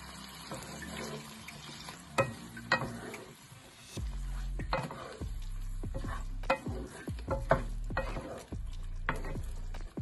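Pork, shrimp and vegetables sizzling in a white coated wok as a wooden spatula stir-fries them in their sauce. There are a couple of sharp knocks at first, then from about four seconds in a run of repeated scrapes and knocks against the pan over the sizzle.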